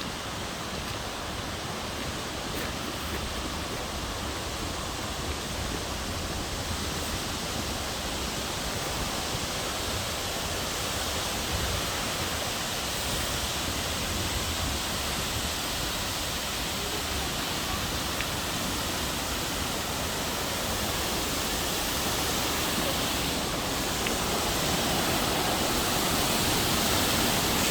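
Loud, roaring waterfall in a narrow rock gorge: a dense, even rush of falling water that grows gradually louder.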